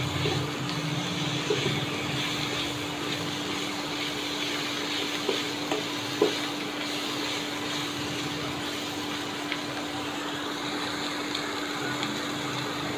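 A masala of green chillies, chopped coriander and spices sizzling in a pan as it is stirred, with a few light clicks of the spoon against the pan in the first half, under a steady low hum.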